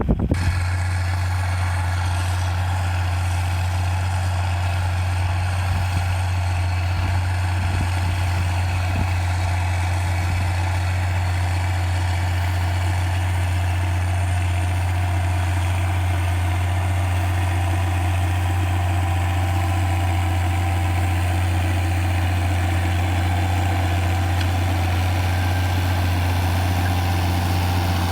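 Tractor diesel engine idling steadily, a constant low hum with no change in speed.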